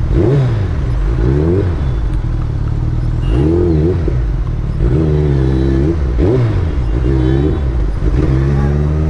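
Suzuki Hayabusa's inline-four engine through a loud exhaust, running at low road speed while the rider blips the throttle again and again, the revs rising and dropping back about once a second.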